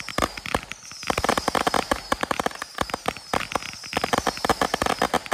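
Quick-fused rack of whistling deadhead firework shots going off: a string of whistles, each falling in pitch, about one a second and overlapping, over rapid pops and crackling.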